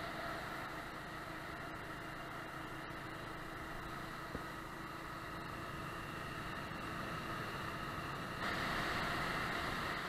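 Small motorbike engine running steadily at cruising speed, with wind and road noise; the sound steps up abruptly about eight and a half seconds in.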